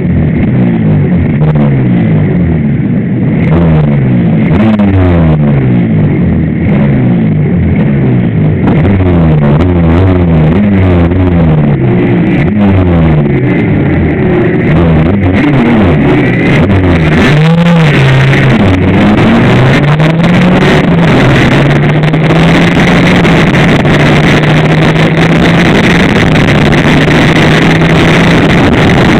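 Suzuki RGV250 two-stroke V-twin race engine heard from a fairing-mounted camera, its note climbing and dropping repeatedly through the first half as it is worked hard, then holding a steadier high note, with wind noise over the microphone.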